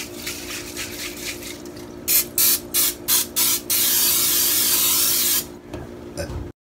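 Aerosol spray can hissing: several short sprays in quick succession, then one longer spray of about a second and a half.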